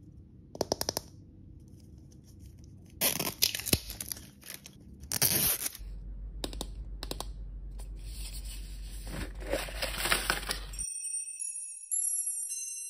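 Plastic wrap and paper layers of an L.O.L. Surprise doll ball being crinkled, peeled and torn open by hand, with a few sharp ticks and bursts of rustling. About eleven seconds in the handling stops and a tinkling, jingle-like music starts.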